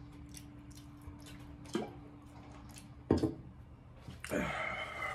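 Quiet eating with faint mouth clicks, a sharp knock about three seconds in as a metal tumbler is set down on a table, and a harsh, breathy cough near the end as the 2x spicy sauce catches the throat.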